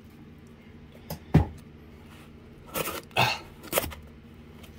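A small corrugated cardboard mailer box being handled on a table: one sharp knock about a second and a half in, then a few short scraping, rubbing sounds of cardboard a little past the middle.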